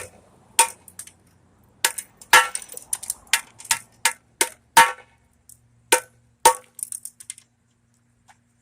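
A hammer tapping on the copper deflection yoke at the neck of a CRT television tube to knock it loose. About a dozen sharp taps come at an uneven pace, each with a short metallic ring, and they stop about seven and a half seconds in.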